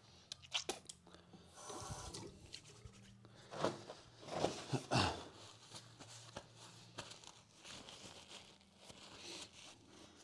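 Irregular rustling, crinkling and scraping handling noises close to a clip-on microphone, loudest in a cluster from about three and a half to five seconds in.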